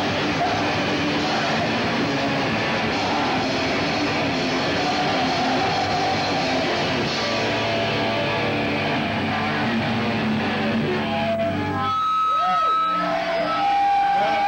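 Rock band playing live and loud, with distorted electric guitar and drums. About twelve seconds in the full band drops out, leaving a few held guitar notes that bend in pitch.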